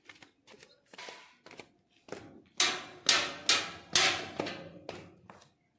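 A series of sharp knocks and clanks: soft clicks at first, then four loud strikes in quick succession in the middle, each ringing briefly, and a few fainter clicks after.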